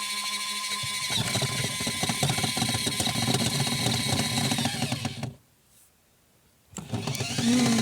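Small 12 V electric spin dryer of a portable washing machine running. A steady motor hum turns into a louder rattling spin about a second in, cuts off abruptly about five seconds in, and starts up again with a rising whine near the end.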